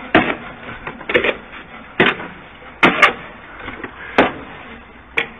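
Masonry work done by hand, bricks and mortar being thrown and caught: a string of about seven sharp knocks and slaps, roughly one a second.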